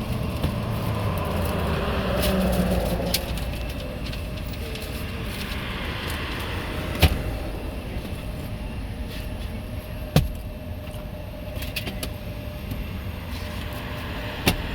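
Car on the move, a steady rumble of road and engine noise, with three short sharp clicks or knocks: about halfway, about ten seconds in, and near the end.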